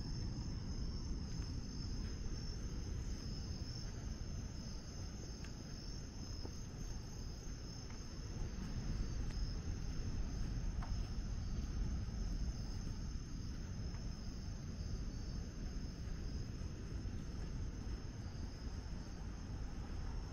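Steady high-pitched chorus of night insects, over a low, even rumble.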